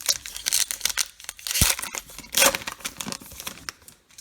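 Baseball card pack wrapper being torn open and crinkled in the hands: a run of crackling rustles, with two louder bursts about a second and a half and two and a half seconds in.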